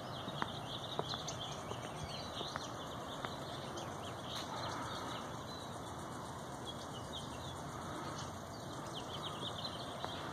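Many small birds chirping continuously in quick short calls, with a few footsteps on pavement.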